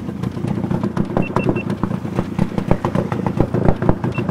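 Outboard motor of an inflatable boat running at low throttle as the boat moves off from the bank, with many irregular knocks. Three short high beeps about a second in, and one more near the end.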